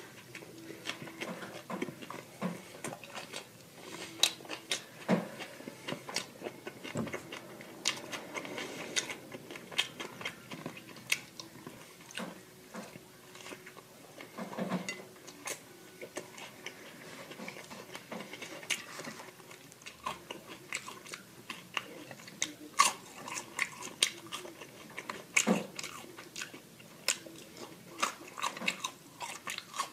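Close-miked chewing and biting of food: irregular crunchy bites and wet mouth clicks.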